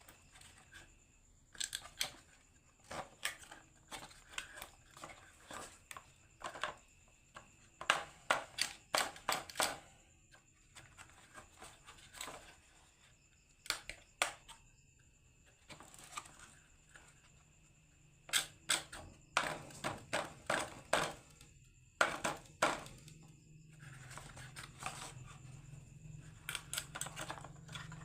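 Marbles rolling and clacking down a wooden HABA marble run, in irregular runs of rapid clicks with short pauses between. A low steady hum comes in about halfway through.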